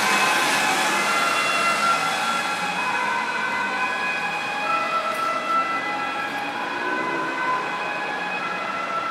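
Ambulance two-tone siren, alternating held high and low notes, growing fainter as the ambulance pulls away through traffic.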